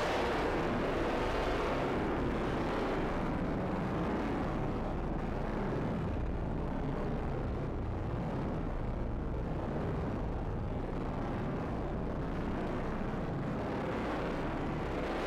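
A steady, rumbling drone of noise from the soundtrack. Its hiss thins out over the first few seconds and brightens again near the end.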